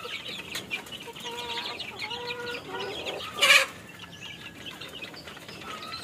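Caged chicks and young native chickens peeping and clucking, with many short calls overlapping, and one brief loud noisy burst from the flock about three and a half seconds in.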